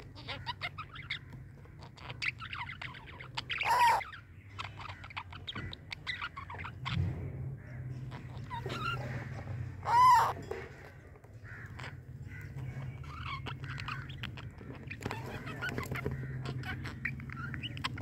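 Pet parrots chattering with many short chirps and clicks. Two louder calls, each rising and falling in pitch, come about 4 and 10 seconds in. A steady low hum runs underneath.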